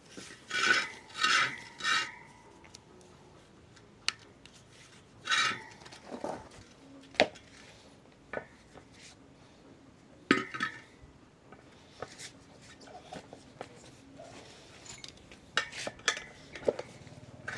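Metal tools scraping and clinking against a motorbike wheel rim as the tyre is fitted: three short rasping scrapes in quick succession at the start, two more later, and many sharp single clinks between them.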